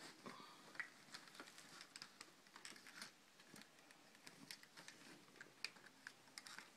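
Faint, scattered clicks and taps from a collapsible bow's limbs being handled and unfolded by hand.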